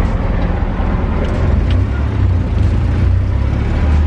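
Engine and road noise of a small truck under way, heard from inside the cab as a steady low drone.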